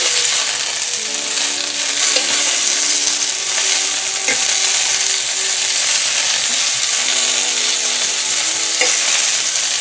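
Sliced onion rings and yellow pepper strips sizzling in hot coconut oil in a nonstick frying pan as they brown, a loud steady hiss, stirred with a plastic spatula that clicks faintly against the pan a couple of times.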